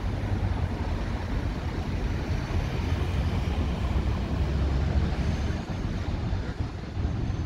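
Road traffic passing close by: a flatbed lorry and several cars drive past, a steady low rumble of engines and tyres.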